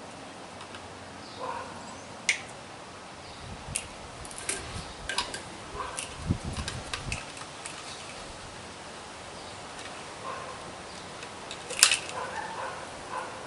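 Small wire cutters and wire leads being handled while the potentiometer's wires are worked one at a time: scattered sharp clicks and snips, the loudest near the end, with a few dull knocks around the middle, over a steady background hiss.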